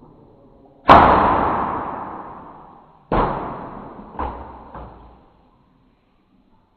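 A homemade PVC-pipe air gun being fired: a loud sharp bang about a second in with a long ringing tail, a second bang about two seconds later, then two fainter knocks.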